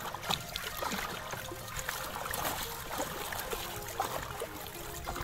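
Wooden paddle stroking through seawater beside an outrigger boat, with splashing and trickling water at each stroke.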